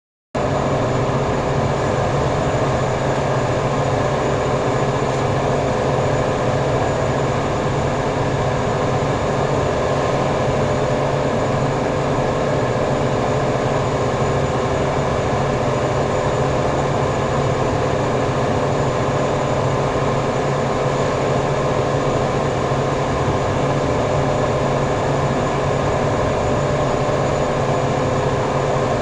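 Workshop machinery running steadily: a constant motor drone with a steady whine, unchanging throughout.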